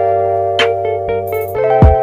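Background electronic music: sustained synth chords over a steady bass line, with a kick drum and a bright hit landing about half a second in and again near the end.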